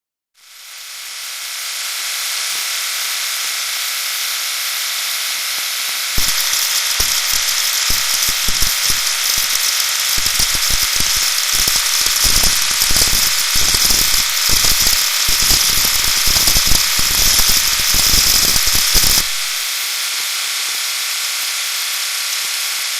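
A running engine heard as a steady hiss-like noise, with a stretch of rapid, irregular sharp knocks from about six seconds in to about nineteen seconds in, typical of detonation (engine knock).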